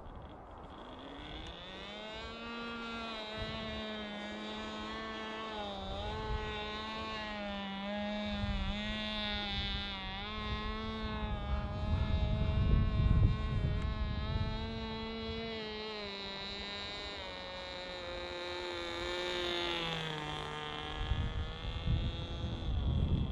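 Motor and propeller of a Mini Super RC plane flying overhead: a steady buzzing drone that wavers in pitch and drops lower near the end. Gusts of wind rumble on the microphone, strongest about halfway through.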